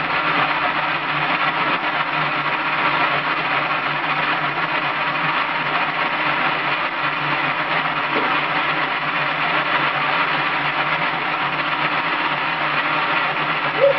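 Small electric motor of a Merkur metal construction-kit model running steadily, driving the model's wheels.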